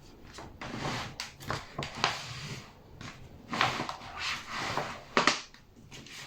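Irregular handling noise: sharp clicks and short scraping rustles of objects being moved and handled, with the loudest knocks about three and a half and five seconds in.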